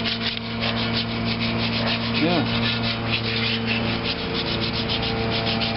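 Sandpaper rubbing by hand over the primed metal of a steel stand, in quick, even back-and-forth strokes, several a second: hand sanding of primer to smooth it for paint.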